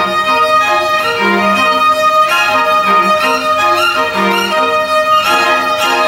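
String orchestra playing: violins, cellos and double bass bowing a long held high note over shorter, moving notes in the lower parts.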